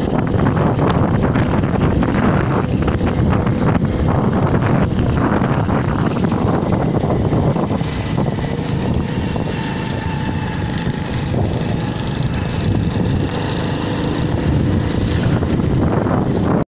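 Wind buffeting the microphone over the steady running of a small motorcycle engine, heard from a moving motorcycle. The noise cuts off suddenly near the end.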